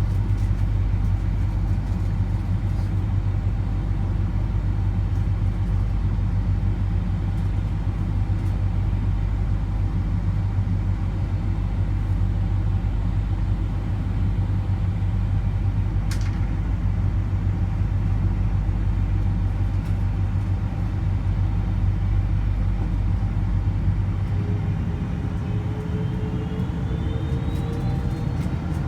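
Cabin noise of a Boeing 747-400 during take-off and climb: a loud, steady rumble of engines and airflow. Near the end the deepest part of the rumble eases and a rising whine comes in.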